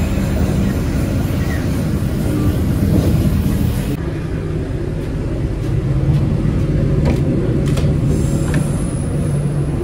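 Train running on the rails: a steady low rumble. The higher hiss drops away suddenly about four seconds in, and a few light clicks come near the end.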